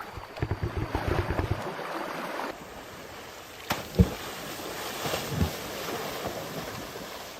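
Rushing river water with wind buffeting the microphone in quick low rumbles for the first second and a half. A sharp click and a couple of dull knocks come about four and five and a half seconds in.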